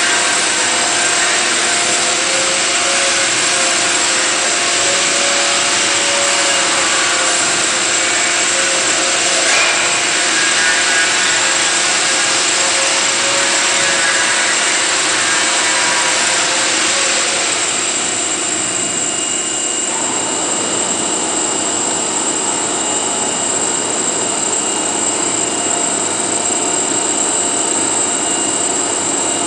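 CNC router spindle running at speed and cutting: a loud, steady hiss with a thin high whine. About two-thirds of the way through the cutting hiss eases while the spindle keeps running.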